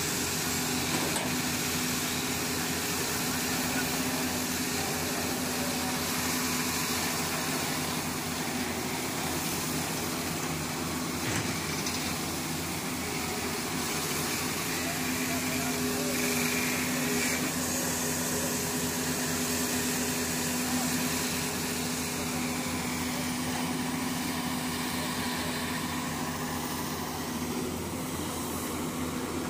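Wheeled excavator's diesel engine running steadily under load as it digs: a continuous engine drone with a steady hum.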